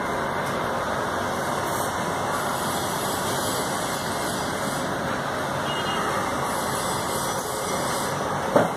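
Steady whooshing of a running fan, with a brief knock near the end.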